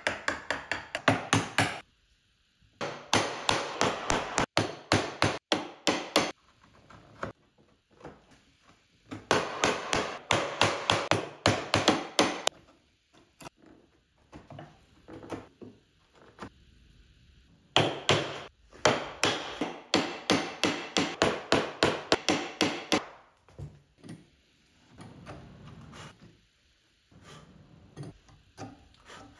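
Wooden mallet striking a chisel chopping into walnut, in quick runs of light blows about four a second, several bursts with short pauses between. Softer, sparser tool-handling sounds follow near the end.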